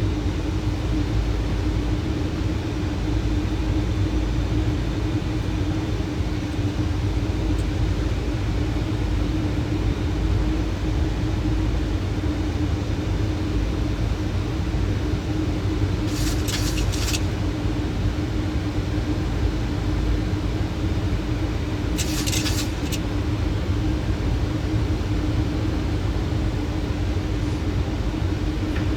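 Boeing 737 flight-deck noise on approach with the landing gear down: a steady rumble of airflow and engines with a constant hum. Two short hissing bursts come about 16 and 22 seconds in.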